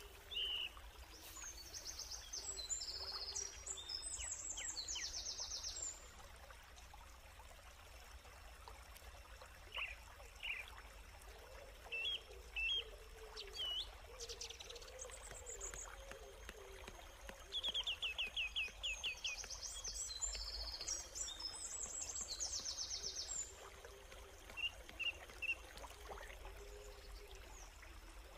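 Wild birds singing: two long bouts of rapid high trills, one near the start and one past the middle, with scattered short chirps between, over a faint steady rushing background.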